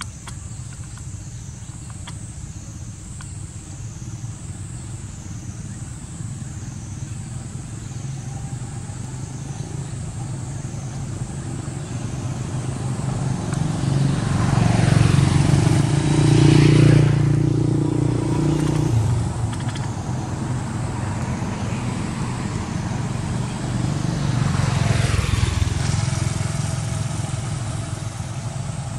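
Motor vehicles passing on a nearby road: a steady low engine rumble swells as one vehicle passes about halfway through, and again as another passes near the end.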